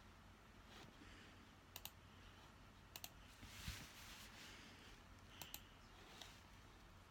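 Near silence: room tone with a few faint, sharp double clicks and one brief soft rustle about halfway through.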